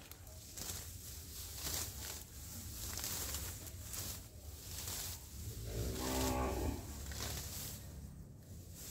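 A cow mooing once, a single call of about a second a little past the middle, over repeated rustling and snapping of leafy plants being handled.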